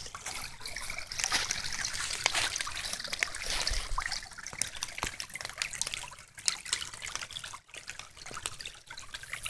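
Small rain-fed creek trickling and splashing, with many small plinks of falling drops through it; a little quieter after about six seconds.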